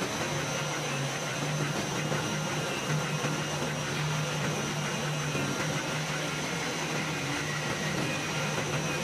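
CNC oscillating knife cutting machine running while cutting PET polyester felt acoustic panel: a steady mechanical hum with an even hiss over it and a faint high whine.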